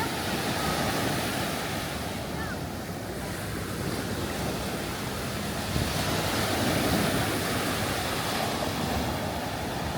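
Small Gulf of Mexico surf washing onto the beach, a steady hiss that swells and ebbs, with wind buffeting the microphone.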